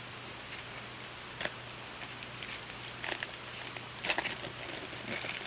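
Baseball trading cards being handled and slid through a stack: irregular light clicks and rustles, busier in the second half.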